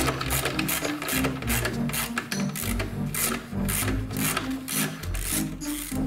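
Socket ratchet wrench clicking in quick repeated strokes as it undoes a washing machine's motor mounting bolts, over background music with a stepping bass line.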